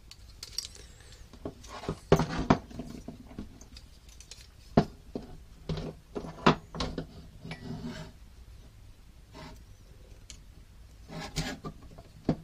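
Hands assembling a carbon-fibre quadcopter frame: irregular clicks, taps and rubbing as the frame parts, small screws and hand tools are handled and set down, with a few sharper knocks.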